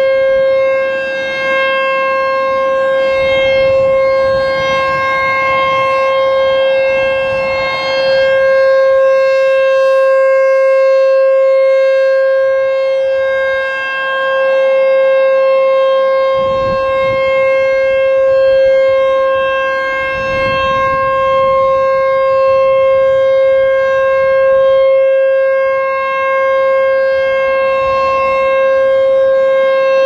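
American Signal T-128 rotating outdoor warning siren sounding a steady, unwavering tone. It swells and fades every six or so seconds as the horn turns.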